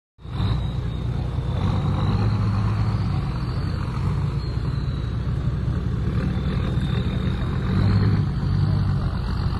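Toyota Land Cruiser 80 Series engine running as the 4x4 drives off over rough ground toward the climb: a steady low drone that swells briefly about eight seconds in.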